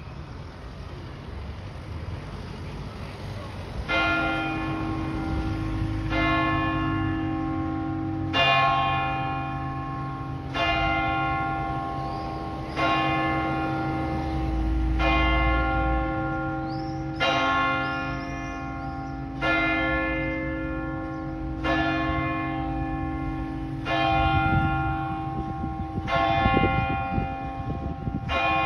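Town-hall clock-tower bell in C, cast by Pruneri in 1949, striking noon: single strokes about every two seconds, starting about four seconds in, each stroke ringing on into the next.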